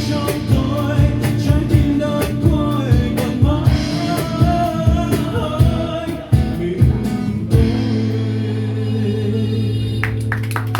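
A song with singing over guitar and a steady beat, ending on a long held final chord about seven and a half seconds in.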